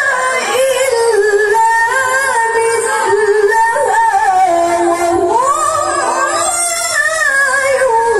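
A woman reciting the Qur'an in the melodic tilawah style, holding long ornamented notes that wind up and down in pitch.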